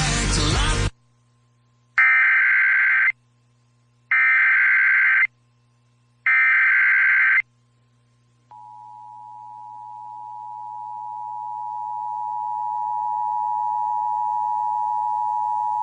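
Emergency Alert System activation on radio: three one-second bursts of the digital SAME header data, then the two-tone EAS attention signal (853 and 960 Hz). The attention signal starts about halfway through, swells in level over several seconds and then holds steady, signalling that a tornado warning message follows. Music cuts off about a second in.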